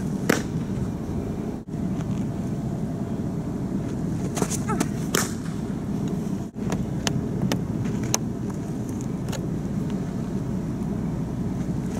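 Sharp pops of a pitched softball hitting a catcher's mitt, a few seconds apart, over a steady low outdoor rumble. The background cuts out briefly twice.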